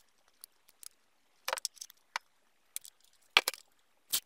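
Hands handling a plastic power strip and its cord: scattered light clicks and short rustles, with a louder cluster about three and a half seconds in.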